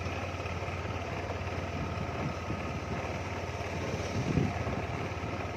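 Engine of a slow-moving vehicle running steadily on a rutted dirt track, with a few short low knocks about four seconds in.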